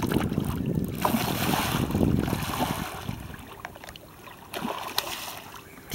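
Water splashing and rushing beside a small boat, with wind on the microphone. It is loudest over the first three seconds, with a few sharp clicks, then quieter, with one more click near the end.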